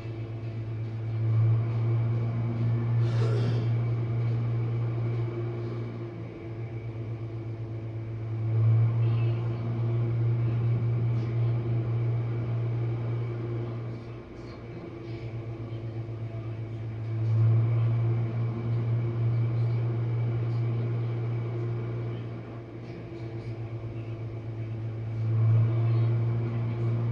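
Jenn-Air dishwasher running its main wash: a steady low hum from the wash pump motor with water spraying inside the tub, the sound swelling and fading about every eight seconds, and a brief splash-like burst about three seconds in.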